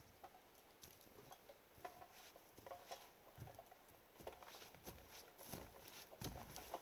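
Near silence with faint, scattered ticks and light crunches; no chainsaw running.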